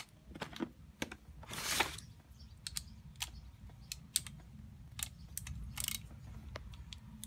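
Irregular light clicks and taps of hand tools and small metal chainsaw parts being handled, with one short scraping rasp a little under two seconds in.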